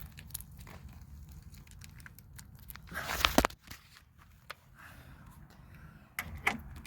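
Scattered small clicks and rattles of a tool and metal parts being handled inside a car door, with a louder scraping rattle about three seconds in.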